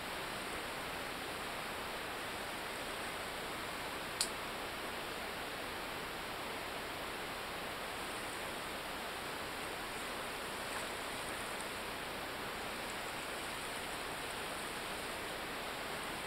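Steady, even hiss of surf washing on the beach, with one sharp click about four seconds in.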